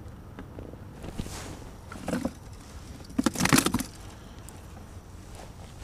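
Handling noises of a mesh fish bag holding the catch being lifted and moved beside a cooler: scattered rustles and knocks, the loudest cluster about three and a half seconds in.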